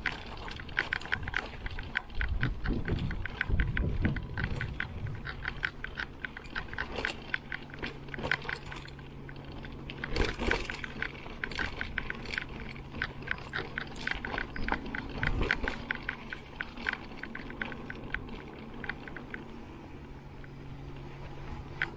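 Giant Trance X 29 full-suspension mountain bike rolling along a dirt singletrack, with a quick, uneven run of sharp clicks and rattles from the bike. Low wind rumble in the first few seconds gives way to a steady low hum from about five seconds in.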